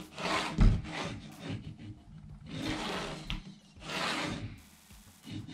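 Graphite pencil scraping along the edge of a metre ruler as it draws a line on marine vinyl, in several separate scratchy strokes, with a low knock about half a second in.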